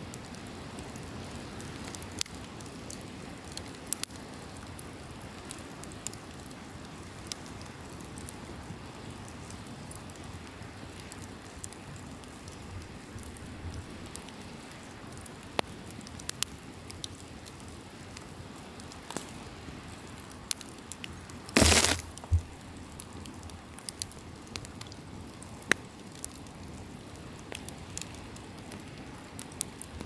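Wood campfire crackling, with scattered sharp pops and one loud, longer crack about two-thirds of the way through, over a steady wash of ocean surf.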